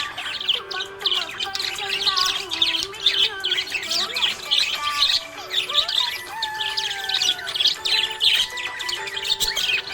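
Budgerigars chirping and warbling in a continuous stream of rapid, overlapping high chirps.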